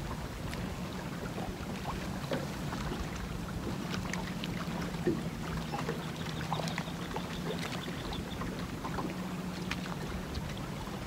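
Electric trolling motor humming steadily while it holds the boat on spot lock, under wind rumbling on the microphone, with scattered light ticks of choppy water against the hull.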